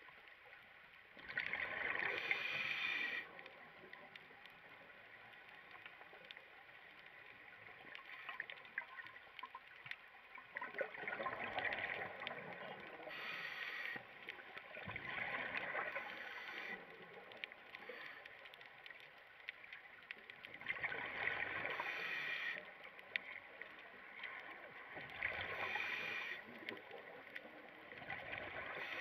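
Scuba regulator exhaust bubbles from a diver breathing underwater: about six bursts of bubbling, each a second or two long, come every few seconds over a faint steady hiss.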